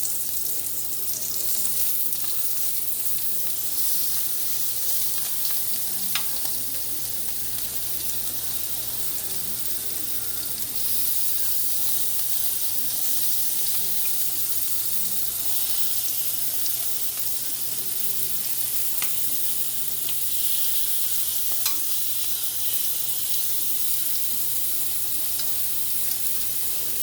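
Chicken thighs sizzling on an indoor grill: a steady high frying hiss, with a few sharp clicks along the way.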